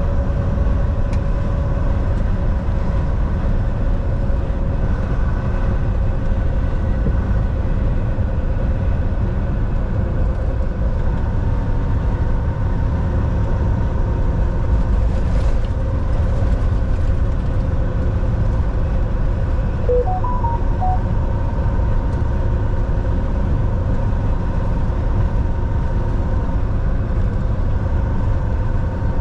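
Volvo semi-truck driving, heard from inside the cab: a steady low engine and road drone with a few faint steady whining tones above it. About twenty seconds in comes a quick run of short electronic beeps.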